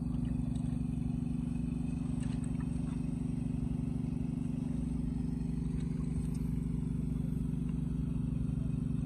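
An engine running steadily nearby: an even, low hum that does not change in pitch or level.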